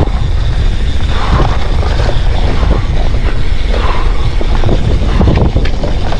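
Wind buffeting the microphone, with the rattle and clatter of a hardtail mountain bike riding over a rough, rooty trail.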